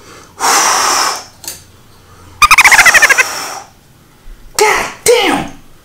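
A man's pained noises after hurting his finger: a sharp hiss of breath, then a high, quavering whimper that falls in pitch about two and a half seconds in, and short falling moans near the end.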